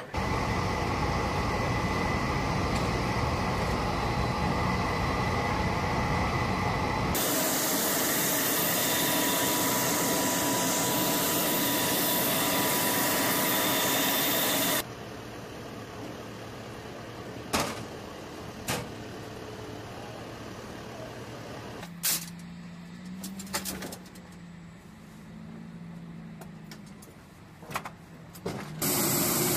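Loud, steady running noise of Navy MH-60S helicopter turbine engines and rotors on a flight line, broken by hard edits. About halfway through it drops to a much quieter stretch of distant engine noise with a few sharp metallic clanks and a low hum.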